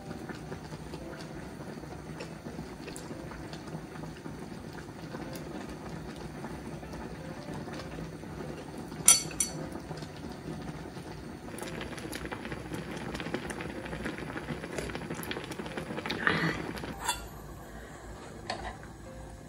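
Shabu-shabu broth bubbling in a pot on a portable gas burner, a steady simmer. A sharp clink of tableware about nine seconds in, and metal tongs clattering in the pot near the end.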